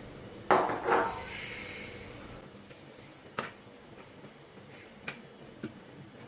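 Two knocks about half a second apart as a small camera body is set down on a desk, with a brief ringing after. Then a few light clicks as an industrial camera is handled and fitted onto a microscope's C-mount lens.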